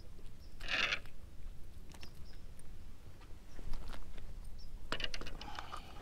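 Handling noise from cut shad bait and fishing gear: scattered light clicks, with a short rustling burst about a second in and another near the end.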